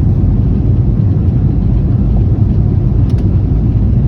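Steady, loud low rumble of a passenger airplane cabin in flight: engine and airflow drone, with a faint click about three seconds in.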